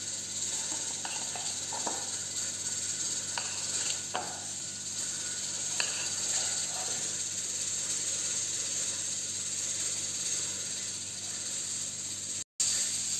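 A few faint taps and scrapes of a utensil spreading cream over a baked cake, over a steady hiss. The sound cuts out briefly near the end.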